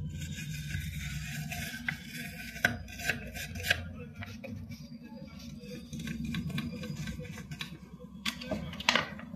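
A toothbrush scrubbing black soot off a welding inverter's circuit board, with scratchy brushing and several sharp clicks and knocks of the brush and board, the loudest near the end. A steady low hum runs underneath.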